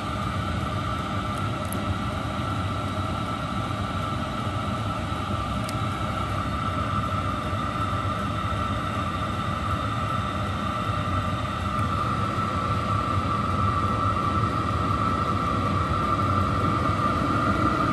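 Chinese diesel air heater (Webasto clone) running: a steady blower roar with a high whine over it, growing a little louder over the last few seconds.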